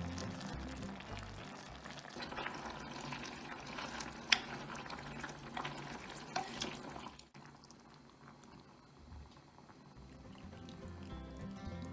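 Pork, kimchi and seasoning sizzling as they are stir-fried in an earthenware pot, with a wooden spatula stirring and scraping, and one sharp knock against the pot about four seconds in. It stops suddenly past the middle, and water is then poured into the pot, faintly.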